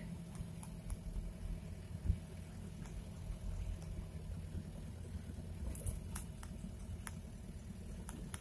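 Chevrolet LUV 4x4 double-cab pickup driving, heard from inside the cab: a steady low engine and road rumble, with a few light knocks and clicks, the loudest about two seconds in.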